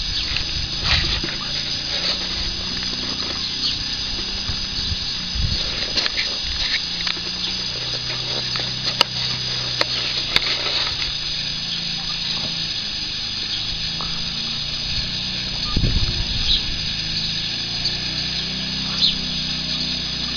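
West Highland White Terrier puppies play-fighting, with low growls and grunts, and a few sharp clicks about halfway through.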